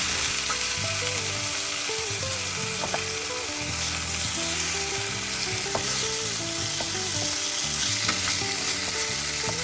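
Chicken thighs sizzling steadily as they fry in oil and blended spice paste in a pot, being stirred to coat them. Soft background music with held notes runs underneath.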